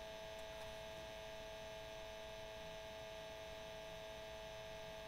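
Faint, steady electrical hum with a constant hiss behind it; no speech.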